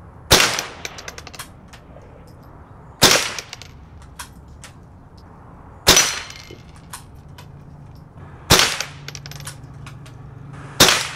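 Five shots from a Winchester Model 74 semi-automatic .22 Long Rifle, one about every two and a half seconds. Each shot is followed by a few short ticks as small steel knock-down targets are hit and fall.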